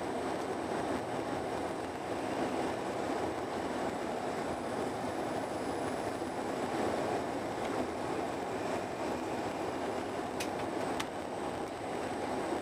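Steady running noise of a Eurostar Italia train at speed, heard from inside the passenger car, with two faint clicks near the end.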